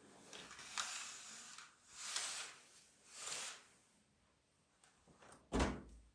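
Household handling noises: three brief swishing sweeps, then a couple of light clicks and one solid knock near the end, like a cupboard or drawer being shut.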